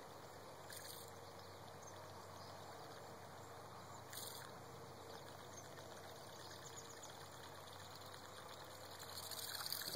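Booyah buzzbait being reeled across a calm pond's surface, its spinning blade churning and gurgling faintly on the water, growing louder near the end as the lure nears the bank.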